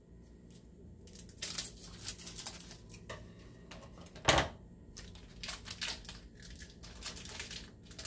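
Plastic wrapper on a block of cheddar cheese being cut with kitchen scissors and peeled open by hand, crinkling in irregular bursts. One sharper, louder click comes about four seconds in.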